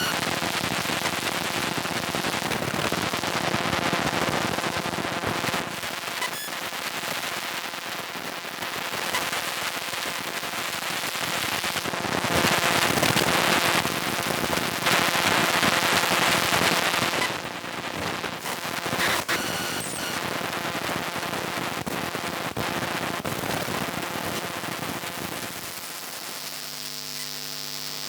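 Electromagnetic interference picked up by a homemade electromagnetic pickup microphone: dense crackling static with faint steady tones underneath, loudest about halfway through. Near the end it gives way to a steady electrical hum.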